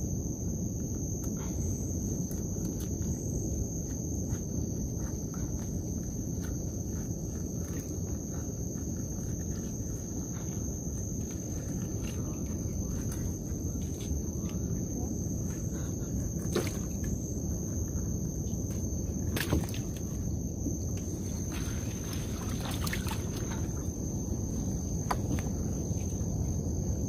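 Trammel net being hauled by hand into a boat, the mesh and float line giving scattered light clicks and rustles, with a few sharper knocks past the middle. Under it runs a steady high insect trill and a low rumbling hiss.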